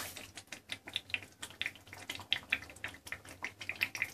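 Chicken fry masala sizzling in the pan: quick, irregular crackles and pops, several a second, as the oil and thick gravy fry on the heat.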